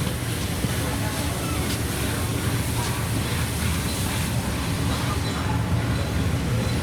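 A train on the move: a steady low rumble with a hiss above it, without any clear beat.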